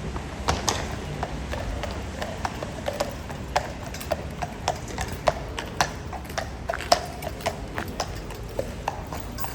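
Horses' hooves clip-clopping on a hard road surface: a steady run of sharp, ringing hoof strikes, about three a second.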